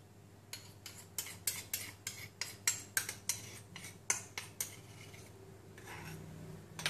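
Metal spoon scraping and clinking against small white ceramic bowls as chili sauce is scraped out and stirred into a dressing: a quick run of clinks, about three a second, for some four seconds, then quieter stirring.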